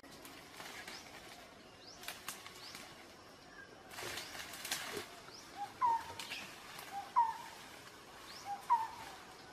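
Forest birds calling: one bird gives a short call three times in the second half, a low note and then a quick upward note. Higher chirps come in between. Several brief rustles through leaves and brush are heard, the longest a little after four seconds in.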